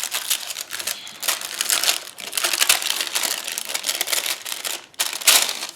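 Packaging crinkling and rustling as a pack of scrapbooking cards is unwrapped and handled, in irregular crackles with a louder burst near the end.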